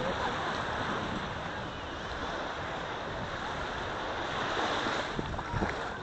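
Small waves washing up on a sandy beach: a steady wash of surf.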